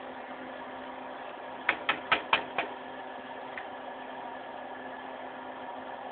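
Diced turkey, onions and bell peppers frying in a pot with a steady sizzle and hum. About a second and a half in come five quick, sharp clicks in under a second, then one faint click.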